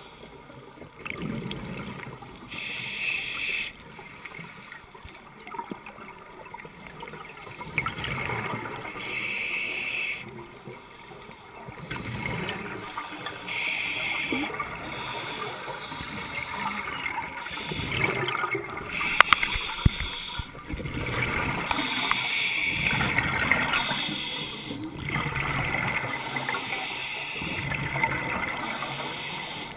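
Scuba breathing heard underwater through a camera housing: a hiss from the demand regulator on each inhale, then a long bubbling exhale, repeated over several breaths. There is one sharp click a little after the middle.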